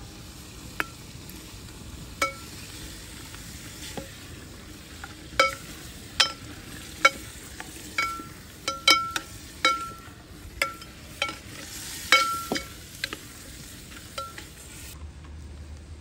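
Chicken frying in a pan with a steady sizzle while a metal spoon stirs it, striking the pan in a string of sharp clinks that each ring briefly. The strikes come thickest in the middle stretch, and the sizzle drops away near the end.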